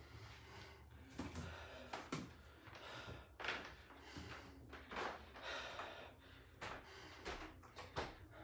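A man's quiet, short breaths and sniffs through the nose, about one a second, as he recovers from a set of exercise.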